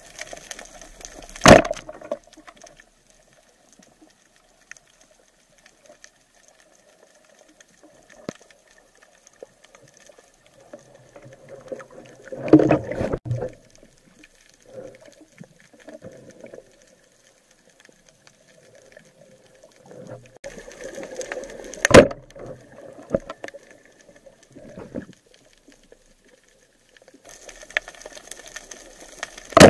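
Underwater sounds picked up by a camera on a roller speargun: mostly quiet, broken by a few sharp knocks and a longer clattering rumble about halfway through. Somewhere in this stretch the gun's rubber bands are released and the shaft strikes a fish.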